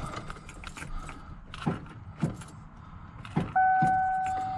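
Ignition key being worked in a 1994 Ford F-150 that will not crank: a few light clicks, then a sharper single click as the key is turned, with no starter cranking after it. A steady electronic chime tone follows at once and fades over about a second. The owner takes the lone click for a failing starter solenoid.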